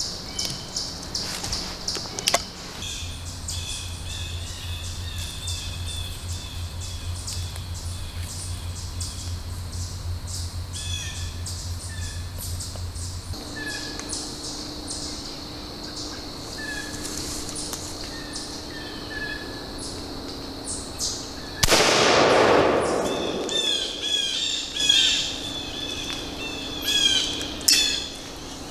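A single shot from a 20-gauge single-shot shotgun converted to a muzzleloader, fired about 22 seconds in, its report echoing away through the woods over a second or two. Birds chirp throughout.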